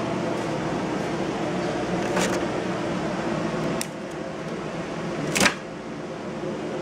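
Wire stripping machine running with a steady mechanical hum, with three sharp clicks, the loudest about five seconds in.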